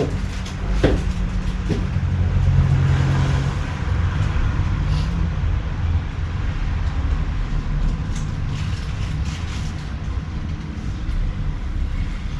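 Low, steady rumble of street traffic coming down the open stairwell, with a couple of footstep-like knocks about a second in.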